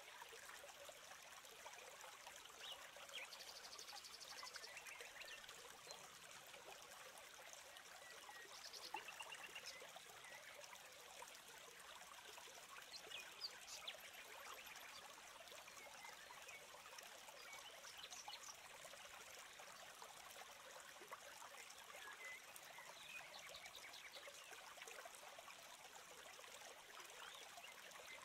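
Faint trickling stream water with scattered short, high chirps and a brief trill about four seconds in.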